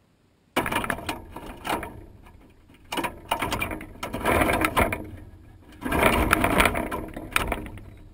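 Blue jay on a wire-spiral peanut feeder, pecking and tugging at the peanuts so that the nuts and the wire coil rattle and clatter close up. It comes in three bursts of rapid clicking, the first about half a second in, the others about three and six seconds in.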